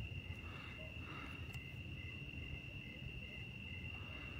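Crickets chirping, faint: a steady high trill with a second, slightly lower chirp pulsing about three times a second.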